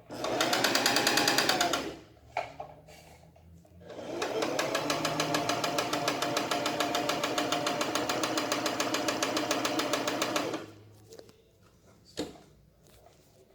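Singer Facilita Pro 4423 sewing machine running unthreaded in two goes: a short one, then a longer one of about six seconds. Each time it speeds up to a fast, even stitching rhythm, with a few clicks in the pauses between. This is a horrible noise that began suddenly after eight months of use and did not change after the bobbin area was oiled; the owner believes it comes from the motor.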